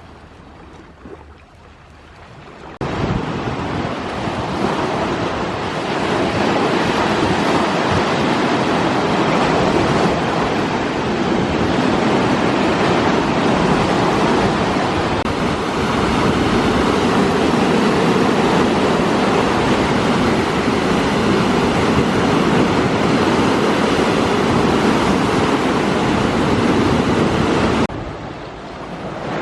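Sea waves breaking, a steady loud rush of surf that comes in abruptly about three seconds in after a quieter stretch and dips briefly near the end.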